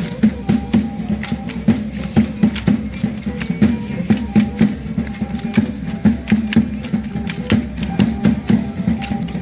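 Matachines dance music: a drum beating a fast, steady rhythm under a violin, with many sharp clicks layered on the beat.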